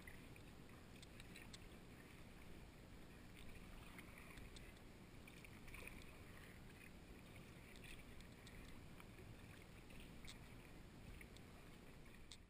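Quiet, faint dips and drips of a wooden kayak paddle stroking through calm water, with soft splashes and small ticks every second or two.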